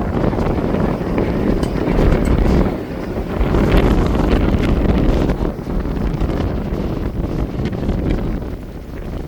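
Strong wind buffeting the microphone in gusts, a loud low rumble that swells and eases every few seconds.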